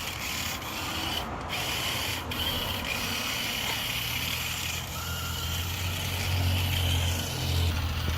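Cheap toy RC car's small electric motor whining as it drives and reverses on bare rear hubs with its back tyres removed. The whine drops to a lower pitch about halfway through.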